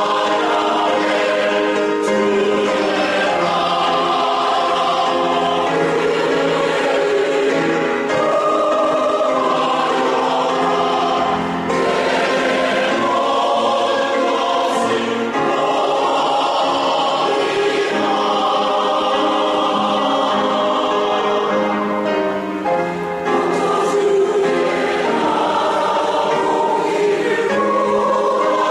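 Mixed church choir of men's and women's voices singing a hymn together.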